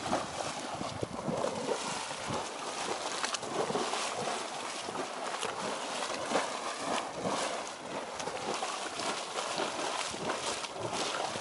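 Geyser erupting: a steady rush of splashing, sloshing water with many small crackles.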